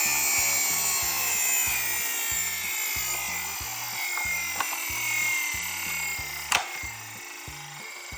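Toy cars scraping and rolling on a hard surface: a steady rasping noise with a faint, slowly falling whine and one sharp click about six and a half seconds in, over background music with a repeating bass line.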